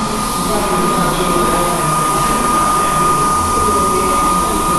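Airbrush spraying: a steady hiss of compressed air through the nozzle, with a steady high whine running through it.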